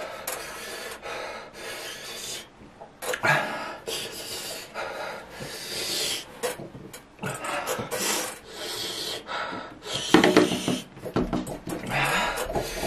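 A man breathing hard through his mouth in a run of quick, hissing breaths from the burn of an extremely hot chili chip. One louder burst comes about ten seconds in.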